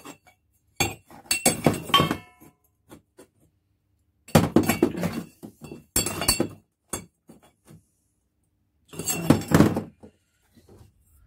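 Stainless steel exhaust tube bends clinking and knocking against each other and the workbench as they are picked up and set down, in four separate bouts, one followed by a brief metallic ring.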